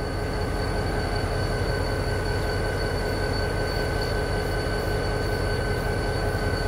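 Diesel locomotive 4145 running steadily: an even low rumble with a steady high whine on top.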